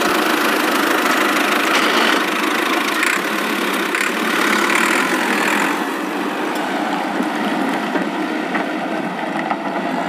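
Tractor engine sound effect, running steadily and growing a little quieter toward the end.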